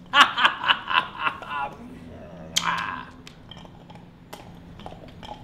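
A burst of laughter: about five quick pitched 'ha' pulses over a second and a half, then a shorter cry about a second later.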